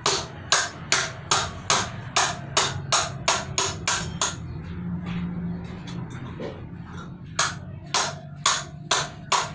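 Sharp metallic clicks from a wrench being worked on the sprocket nuts of a motorcycle rear wheel hub, about three a second and speeding up, stopping for about three seconds midway, then coming again slower and uneven near the end.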